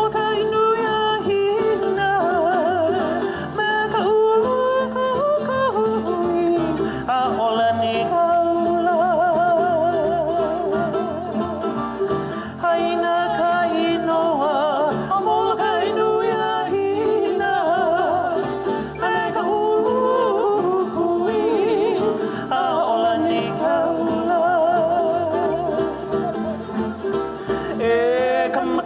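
Live Hawaiian hula music: acoustic guitar, ukulele and upright bass accompany a singer whose held notes waver with heavy vibrato, continuing without a break.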